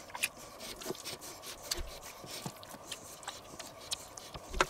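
Raw chicken pieces being turned by hand in buttermilk in a stainless steel bowl: scattered faint clicks and small knocks, the loudest near the end.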